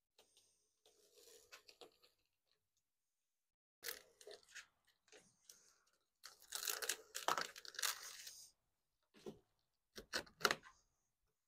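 Adhesive tape being pulled off its roll in several ripping bursts, the longest and loudest lasting about two seconds a little past halfway, with rustling as it is pressed down onto foil-faced insulation.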